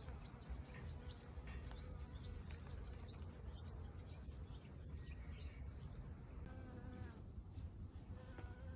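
Flying insects buzzing in a faint, steady hum, with short high chirps scattered through and a low rumble underneath.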